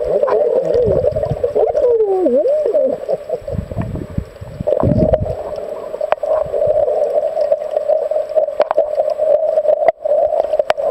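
Muffled underwater sound picked up by a snorkeler's camera: low rushing water surges and thumps under a wavering, hum-like tone that slides up and down for the first few seconds, then holds fairly steady.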